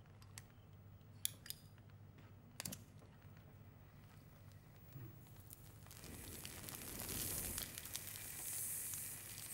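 Flip-top lighter clicking a few times in the first three seconds, then from about six seconds in a growing hiss as its flame is drawn down into a packed pipe bowl and the pipe is puffed alight.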